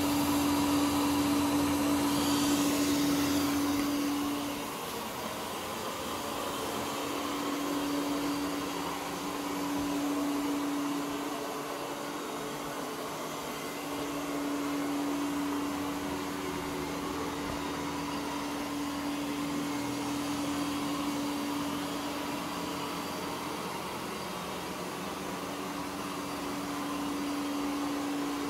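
Ecovacs Deebot OZMO T8+ robot vacuum running on carpet: a steady whir with a humming tone that fades in and out, dropping in level about five seconds in.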